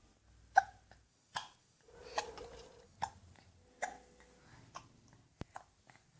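A baby hiccuping: a run of short, sharp hiccups a little under a second apart.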